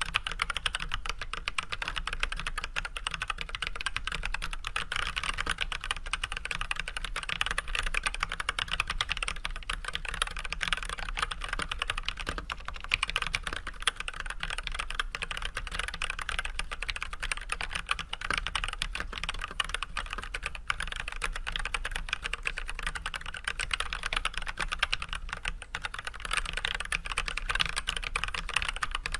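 Steady, continuous typing on an Archon AK87 hot-swap mechanical keyboard fitted with unlubricated Everglide Red 67g linear switches with switch films and white PBT keycaps: a dense, even stream of key clacks with no pauses.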